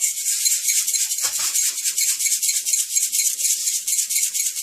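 Salt being shaken out over a tape-covered phone: a fast, continuous rattle of grains.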